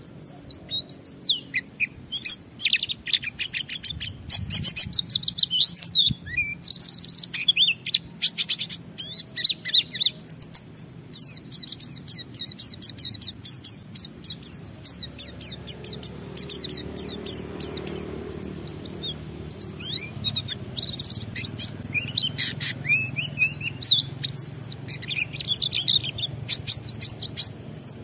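A white-eye (pleci) singing a long, unbroken 'ngalas' song: a fast, high-pitched run of twittering chirps and trills with hardly a pause. A faint low hum sits under it.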